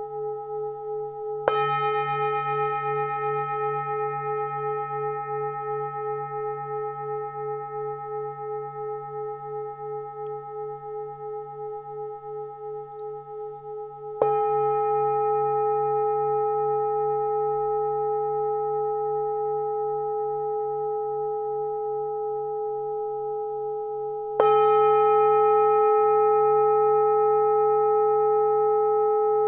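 Hand-hammered 24.5 cm Full Moon singing bowl, tuned to D 142 Hz and G# 425 Hz, struck three times: about a second and a half in, around the middle, and near the end. After each strike it rings on with a slow, regular wavering pulse.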